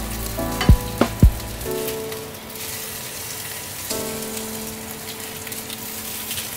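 Venison hamburg steaks sizzling as they fry in a pan, a steady crackling hiss. Background music plays over it, with three quick low notes in the first second and a half and held tones later.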